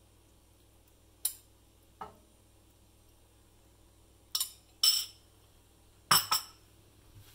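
Metal spoon clinking against a porcelain bowl as sauce is scooped out and spooned over the dish, a handful of short sharp clinks spread out, the loudest in the second half.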